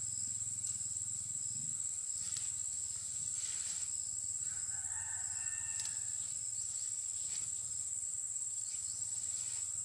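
A rooster crows once, a little under halfway through, over a steady high-pitched insect drone, with faint rustling and snapping of leaves.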